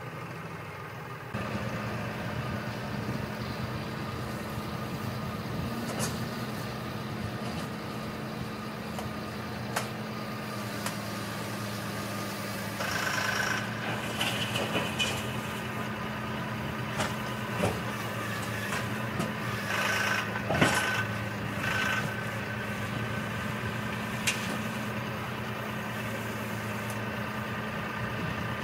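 Massey Ferguson tractor's diesel engine running steadily under load, picking up about a second in, as its front-end loader bucket digs a trench. Scattered knocks and scrapes from the bucket working stony ground, with a few busier clattering stretches.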